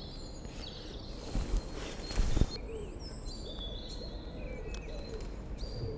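Small birds chirping in the background, short high notes repeated every so often over a steady low outdoor rumble; two dull knocks come about one and a half and two and a half seconds in.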